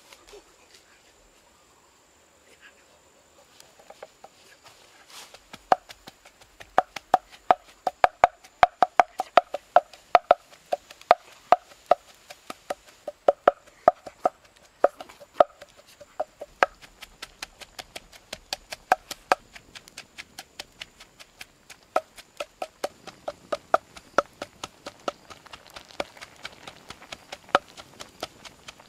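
Intestines popping and spitting in a hot wok over a wood fire: loud, sharp pops, several a second, each with a brief ring. They start about five seconds in, are thickest in the middle, and thin out before picking up again near the end.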